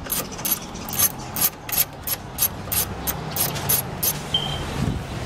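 Hand socket ratchet clicking steadily, about three clicks a second, as it is swung back and forth to back out a bolt on the engine's top cover. The clicking stops about four seconds in.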